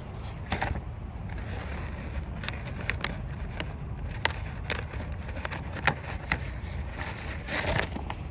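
Close handling noise: crinkling and rustling with scattered sharp clicks, typical of plastic food packaging such as an onigiri wrapper being handled. A steady low rumble runs underneath.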